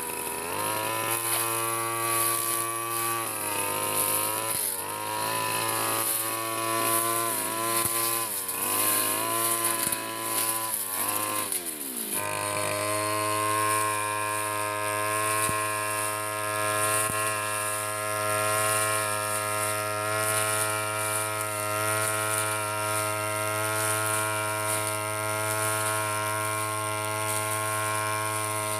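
Backpack brush cutter's small engine running while mowing grass. For the first twelve seconds or so its pitch dips and picks up again and again as the cutting head bites into the grass. After an abrupt change it runs at a steady high speed.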